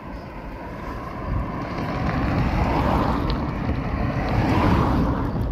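Wind rushing over the microphone with the road and engine noise of a moving vehicle, growing louder about a second and a half in.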